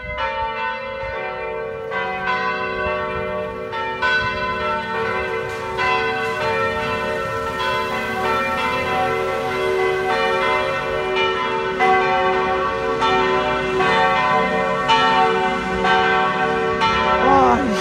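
Church bells ringing a full peal to ring in Sunday: several bells swinging at once, their strikes overlapping in a continuous, uneven clangour.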